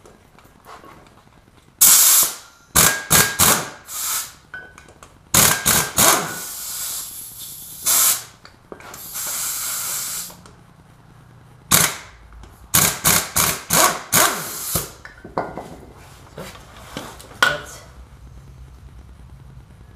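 Pneumatic impact wrench firing in repeated short bursts as it hammers out the bolts holding a brake rotor to a wheel hub, with one longer, smoother run about nine seconds in.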